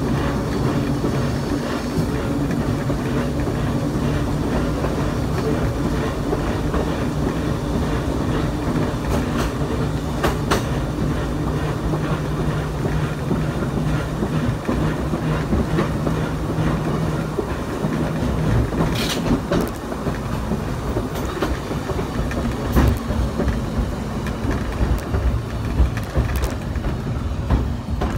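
Brooklyn Rapid Transit open streetcar 4573 running along the track: a steady low hum from the car's motors and gearing, with clicks and knocks as the wheels cross rail joints. The hum dies away about two-thirds of the way through, and the knocks come more often towards the end.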